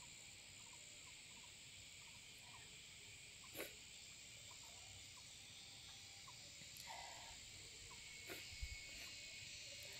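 Near silence: faint rural field ambience with a steady high-pitched insect drone and a few faint short chirps. A single light click comes about three and a half seconds in.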